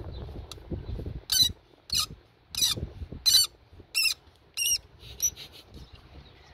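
Mass air flow sensor mounting screw on a 2005–2008 Audi A4 2.0T squealing as it is turned out with a screwdriver, a screw that has never been removed before. Six loud high-pitched squeaks come about two-thirds of a second apart, sounding like an animal in distress, followed by a few fainter ones.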